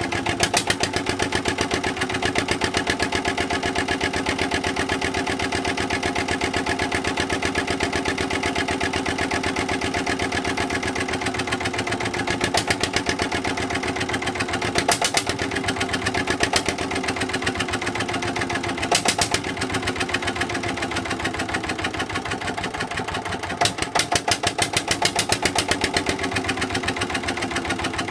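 Petter AVA1 single-cylinder air-cooled diesel stationary engine running with a fast, even beat. A few times its beat grows louder and its pitch dips briefly before steadying again.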